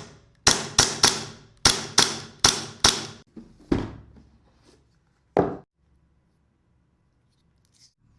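Gas blowback airsoft pistol, a replica of the Pit Viper, firing a quick string of about seven shots in doubles and singles, then two more spaced-out shots.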